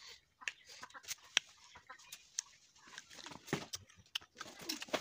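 A chicken clucking in short, scattered calls, mixed with sharp little clicks.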